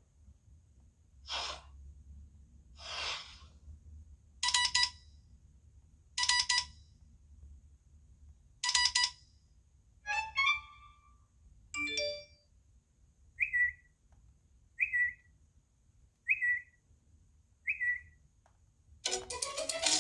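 iPhone 11 Pro ringtones or alert tones playing: a string of short electronic chimes about a second and a half apart. The pattern changes about halfway through, ending in four identical short high chirps.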